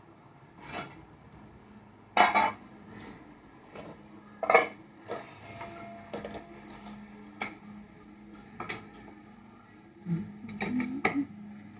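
Dishes and cutlery being handled, with scattered clinks and knocks, the loudest about two seconds and four and a half seconds in.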